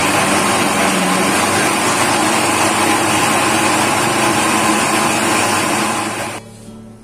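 Electric mixer grinder running at full speed, its motor and blades churning tomatoes into a purée, then switched off abruptly about six seconds in.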